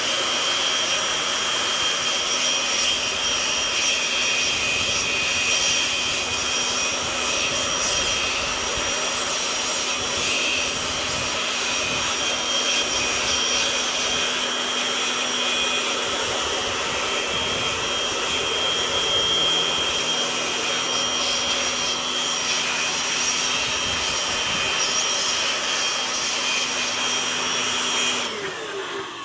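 Air blower running steadily with a whine, its jet of air played over a bare graphics card circuit board to blow off petrol and moisture after washing. It shuts off suddenly near the end.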